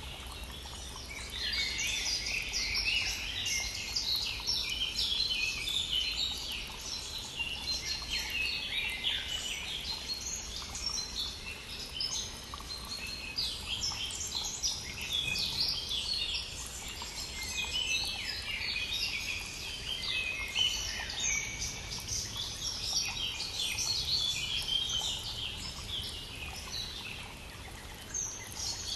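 Many songbirds singing at once in a dense spring chorus of overlapping chirps and trills, over the steady low rush of a stream.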